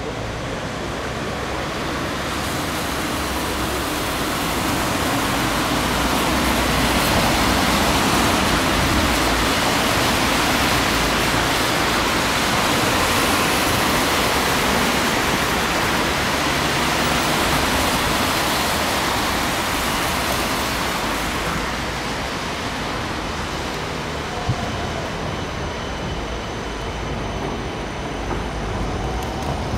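Traffic on a wet city street: a steady hiss of tyres on the wet road swells to its loudest in the middle as a lorry and a car drive by, then eases off. Trams run along the street tracks at the start and near the end.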